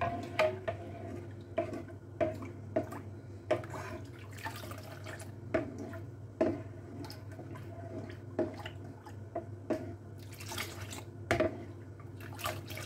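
Metal ladle stirring a thin mango milk pudding mixture in a non-stick pan, the liquid sloshing and the ladle tapping the pan irregularly, about once or twice a second, over a steady low hum. The mixture is being heated toward the boil.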